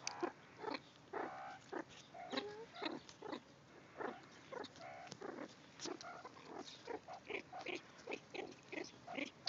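Meerkats calling at the wire while being hand-fed: a busy run of short squeaks and chirps, several a second, some with a wavering pitch, mixed with brief clicks.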